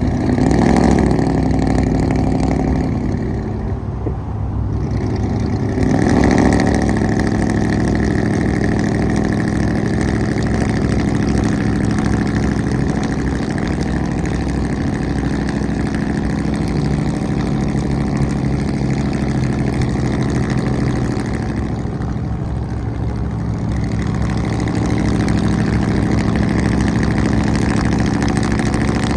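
Pickup truck with a loud aftermarket exhaust running. It revs briefly about a second in and again about six seconds in, then settles to a steady run.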